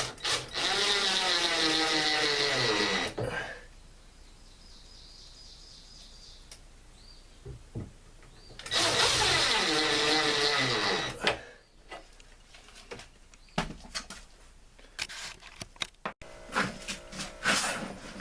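Power drill driving two screws, each run lasting about two and a half seconds, with the motor's pitch falling as it loads up and the screw seats. Scattered clicks and knocks of handling follow near the end.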